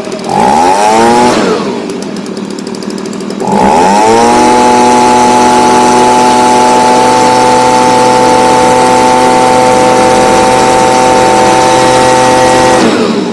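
Stihl BG55 handheld leaf blower's small two-stroke engine, running on a new replacement carburetor. It is revved up briefly and dropped back to idle, then opened to full throttle about three and a half seconds in and held there steady at high revs with a rush of air, then released near the end.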